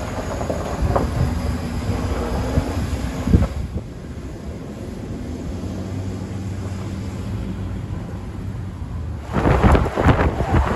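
Ford pickup truck engine running as the truck pulls away, with a single thump about three seconds in, then fading to a quieter steady hum. About nine seconds in, a sudden loud rushing noise starts: tyres rolling through snow, with wind on the microphone.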